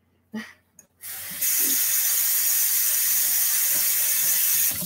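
Kitchen tap turned on about a second in, water running hard into a stainless-steel sink over a doll head held under the stream, then shut off abruptly near the end.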